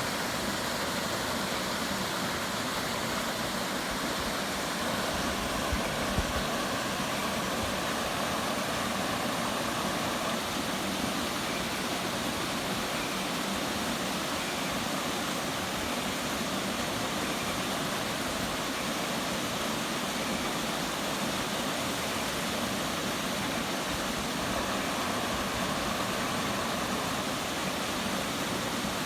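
Waterfall: water rushing steadily and evenly, with a couple of brief low bumps about six seconds in.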